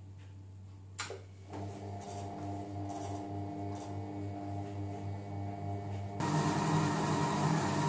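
Silvercrest Monsieur Cuisine Connect food processor on its kneading setting, working shortcrust pastry dough: a click about a second in, then the motor starts with a steady hum and a pulsing beat, and near the end it turns into a much louder churning.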